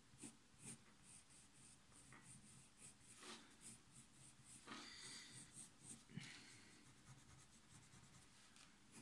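Faint scratching of a coloured pencil on drawing paper in short, repeated shading strokes, working colour into the white spots left in the hair.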